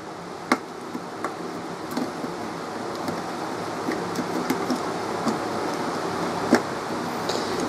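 Knife tip working in the screw heads of a plastic pull-cord ceiling switch, turning the screws out: a few sharp metal clicks over a steady hiss that slowly grows louder.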